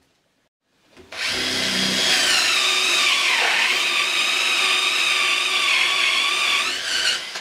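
Cordless drill boring into a wooden beam with a forged Forstner bit, starting about a second in. Its motor whine dips in pitch under load midway, recovers, and stops suddenly near the end.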